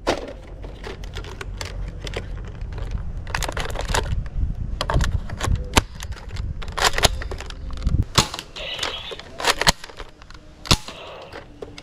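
Sharp, irregular plastic clicks and clacks from handling and firing a black toy sniper rifle. A low rumble runs under the clicks and stops about eight seconds in.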